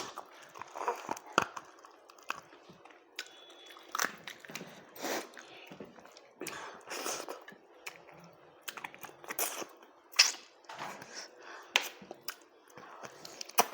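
A person eating rice close to the microphone: irregular chewing and mouth sounds with scattered sharp clicks and crunches.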